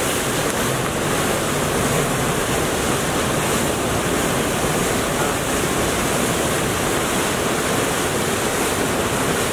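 Water of a large canal rushing past under a bridge: a steady, even hiss spread across all pitches.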